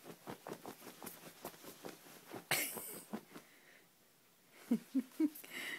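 A toddler's playful noises: a quick run of short puffs of breath, a loud breathy blow about two and a half seconds in, then three short grunting voice sounds near the end.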